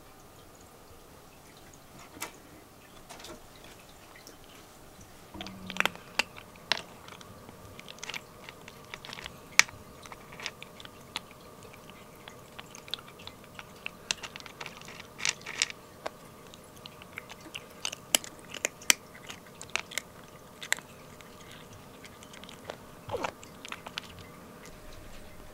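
A kitten crunching dry cat kibble, a run of irregular sharp crunches that starts about five seconds in.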